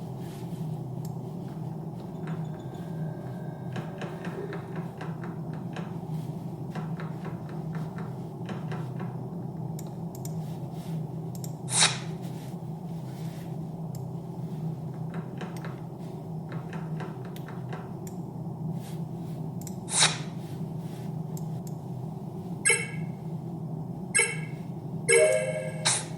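Close-up handling of a gaming mouse and its packaging: faint ticks and rustles over a steady background hum, with two sharp knocks about twelve and twenty seconds in and a quick cluster of clicks near the end.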